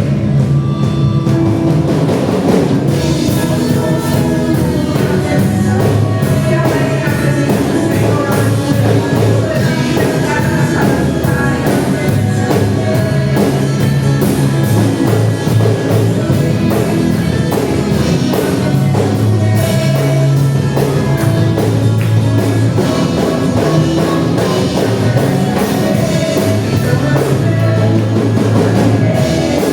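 Worship band playing a hymn with a drum kit keeping a steady beat under guitar and bass.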